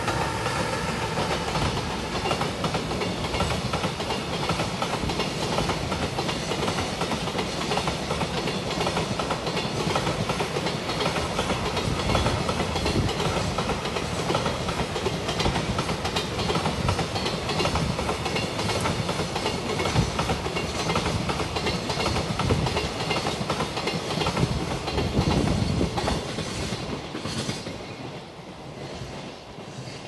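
Freight train hauled by a JR Freight EF210 electric locomotive rolling past, with a train of container flat wagons: a steady rumble with the wheels clacking over the rail joints. It fades away over the last few seconds as the last wagon passes.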